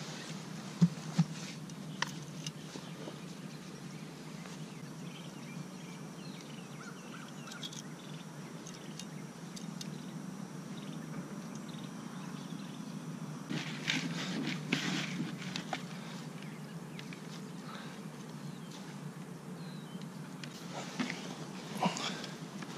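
Fishing gear being handled on a grassy shore: two sharp clicks about a second in and another shortly after, then bursts of rustling and handling noise around the middle and near the end, over a steady low background noise.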